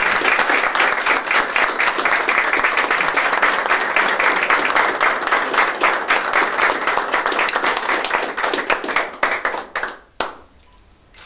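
A small audience applauding steadily. The clapping thins out and stops near the end, followed by a single sharp click.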